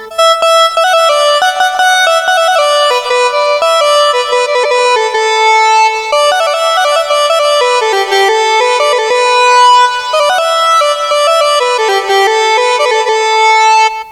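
Instrumental folk tune played as one reedy, sustained lead melody that moves in steps from note to note, with no singing.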